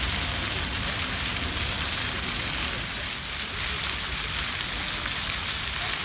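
Water jets of a ground-level plaza fountain shooting up and splashing back down onto stone paving: a steady wash of splashing water.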